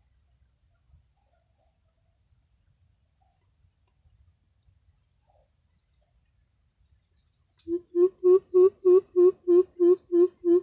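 Greater coucal call: a run of about a dozen deep, evenly spaced hoots, roughly three a second, starting some seven and a half seconds in. Insects shrill steadily and faintly throughout.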